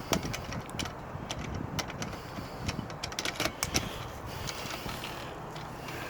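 Irregular light clicks and taps of metal lock parts and hand tools being handled as a mechanical pushbutton door lock is taken apart.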